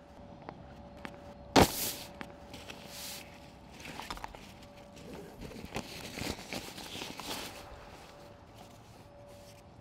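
A climbing rope bag thumps down onto the gym floor about one and a half seconds in. Fabric rustling and small clicks follow as the bag is opened and the rope handled, over a faint steady hum.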